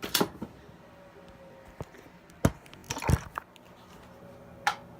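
A handheld lighter being flicked: about five sharp clicks at uneven spacing, the loudest about halfway through.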